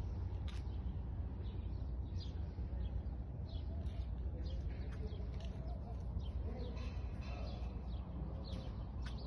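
Many small birds chirping in quick short calls over a steady low rumble.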